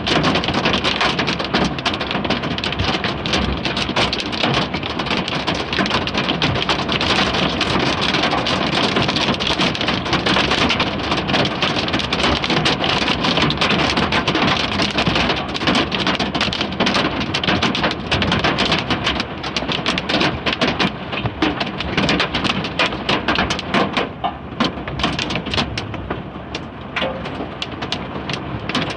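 Hailstones pelting a vehicle's windshield and body in a dense, continuous clatter of rapid hits, easing a little near the end.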